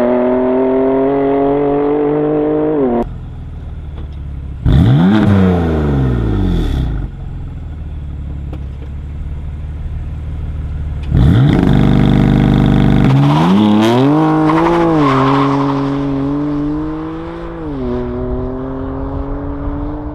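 BMW M4 F82's twin-turbo straight-six accelerating and revving, its pitch climbing slowly under load. It drops off about three seconds in, blips up and falls away around five seconds, then pulls hard again and steadily from about eleven seconds before easing off near the end.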